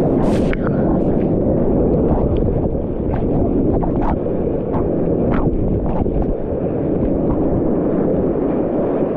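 Surf water and wind rushing against a GoPro in the water, heard as a loud, steady, muffled rumble with scattered small splash ticks.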